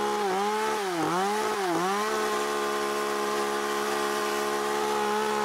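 Chainsaw carving into a wooden sculpture: the motor's pitch sags three times in the first two seconds as the chain bites into the wood, then it runs at a steady high pitch.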